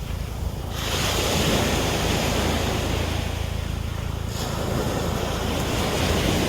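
Wind gusting and buffeting the microphone: a rushing noise over a low rumble that swells about a second in, eases briefly past the middle, then builds again.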